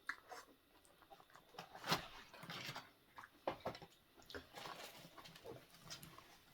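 Close-up eating sounds: irregular wet chewing, lip smacks and clicks from the mouth, the loudest about two seconds in.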